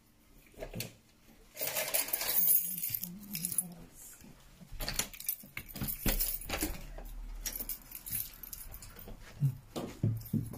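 A bunch of keys jangling, loudest about two seconds in, then scattered metallic clicks from a front door's knob and latch as the door is opened.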